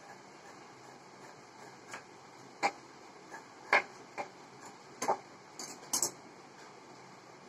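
Tailoring shears snipping through stitched blouse fabric while trimming the seam allowance of a neckline: a series of short, sharp clicks, about eight of them between two and six seconds in, the loudest near four seconds.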